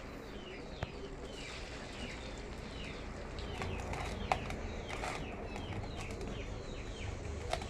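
Vadais frying in a pan of hot oil: a low, even sizzle with a few sharp pops. Birds chirp over it with many short, falling calls.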